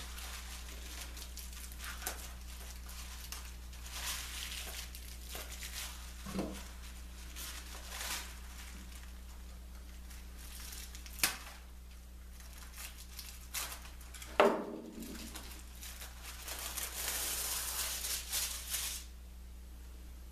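Paper backing being handled and peeled from self-adhesive carpet squares: rustling and crinkling with a couple of sharp knocks, and a longer tearing rasp near the end.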